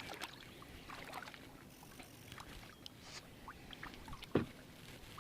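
Kayak paddling: the paddle blades dip and splash, with water dripping and small clicks throughout. A single sharp knock comes about four seconds in.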